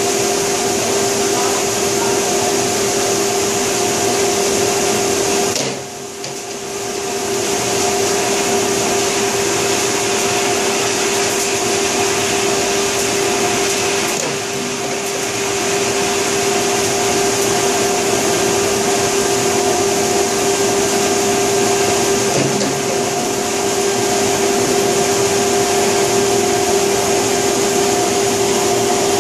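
Olney Model GP dry bean washer running: a steady rush of water as beans are washed and tumbled down the trough, over the machine's steady hum.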